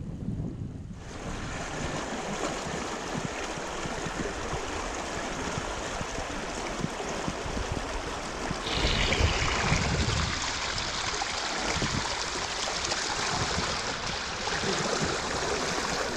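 Rocky stream rushing and splashing over boulders close by, a steady hiss of water that grows louder about halfway through. Low wind rumble on the microphone in the first second, before the water comes in.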